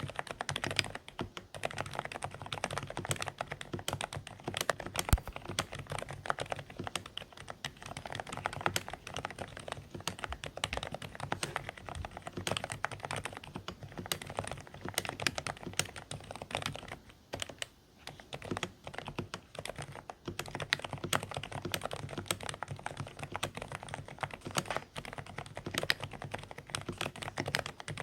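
Dareu A104 Pro mechanical keyboard with silent beige switches being typed on steadily, a dense run of soft, muffled keystrokes with a brief pause about two-thirds of the way through.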